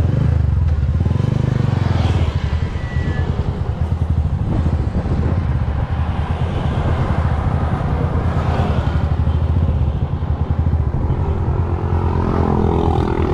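Suzuki motorcycle engine of a sidecar tricycle running at low speed, a steady low drone, with road and passing-traffic noise.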